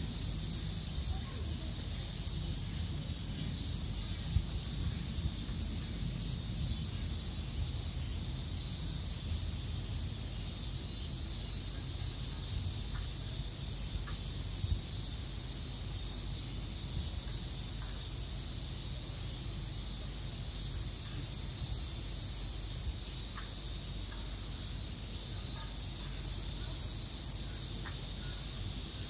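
Cicadas chirring in a steady high hiss, with a low rumble underneath. Two brief soft knocks come about four and fifteen seconds in.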